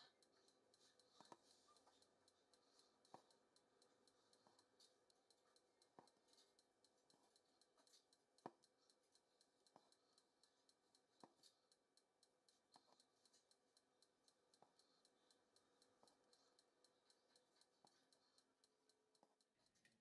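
Faint, irregular clicks and ticks from hand embroidery: a needle piercing taut fabric in a hoop as thread is drawn through. A few clicks stand out louder, one about eight and a half seconds in.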